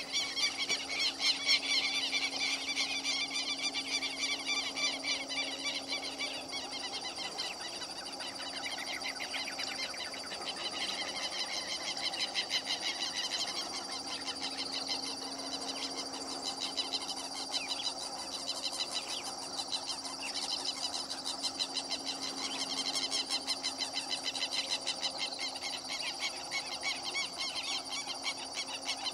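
A dense, continuous chorus of rapid high chirps and trills from wild animals, with a faint steady hum underneath.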